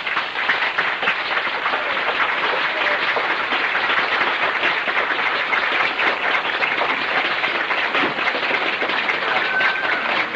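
Audience applauding: dense, steady clapping that swells up as the speech ends and holds level throughout.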